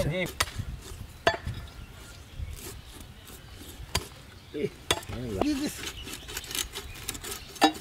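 Heavy cleavers chopping through raw fish flesh and bone onto wooden log chopping blocks. The chops are sharp and come at irregular intervals, a second or several apart.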